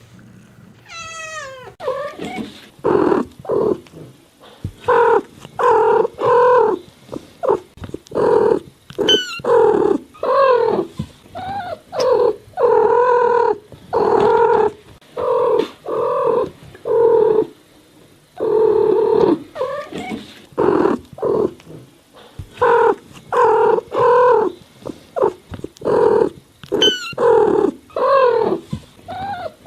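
Cat meowing over and over in short calls, about one or two a second, with brief pauses between runs. About a second in there is one high call that slides steeply down in pitch.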